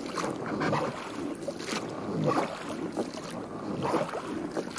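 Small boat being moved along by hand. Several irregular splashes and drips of the strokes in the water come about a second apart, with some wind on the microphone.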